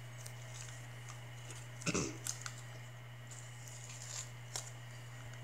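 Quiet room tone with a steady low hum, a few faint small clicks, and one short louder sound about two seconds in that falls in pitch.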